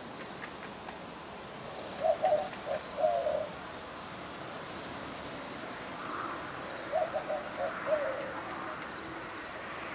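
A dove cooing: two short phrases of a few low notes each, about five seconds apart, the last note of each phrase the longest.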